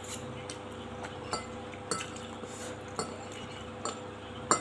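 Spoon and fork clinking and scraping against a clear glass plate while scooping noodles, about six clinks with the loudest near the end. A steady low hum runs underneath.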